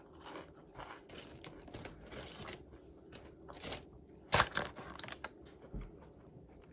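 Crunchy fried food being bitten and chewed close to the microphone: a run of crisp crunches, the loudest about four and a half seconds in.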